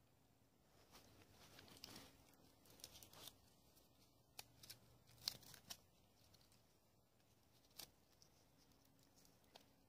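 Faint scattered clicks and short rustles against near silence, the loudest a sharp click about five seconds in.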